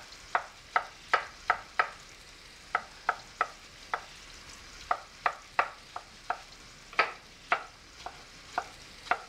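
Chef's knife chopping soft eggplant flesh on a wooden cutting board: quick, even strikes, about three a second, in short runs with brief pauses between them.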